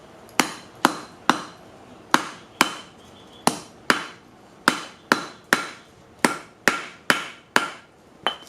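Blacksmith's hammer striking steel laid on a red brick used as a makeshift anvil: about fifteen sharp blows, roughly two a second in groups of two or three, each with a short metallic ring.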